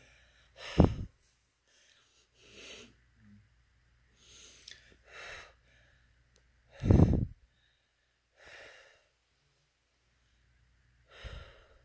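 A person breathing hard through the pain of a dystonia spasm: about seven breaths, a second or two apart. The loudest come about a second in and about seven seconds in.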